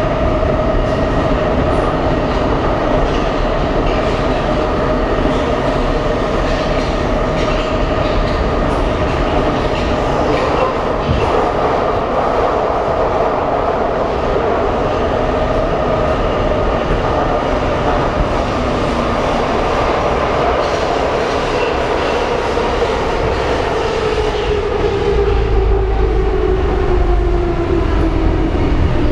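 Soviet-built metro car heard from inside while running through the tunnel: a steady rumble and rattle of wheels under a motor whine. Over the last several seconds the whine falls steadily in pitch and the low rumble grows as the train slows into a station.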